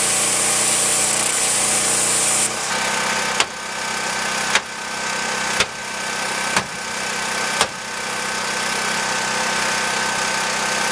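Plasma cutter hissing as it cuts through a steel U-bolt, stopping about two and a half seconds in. Then a hammer strikes the cut bolt five times, about once a second, over a steady machine hum.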